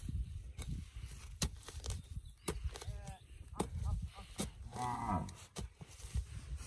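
An iron bar is jabbed and scraped into hard soil, making repeated irregular knocks and scrapes. Two short wavering calls sound about three and five seconds in.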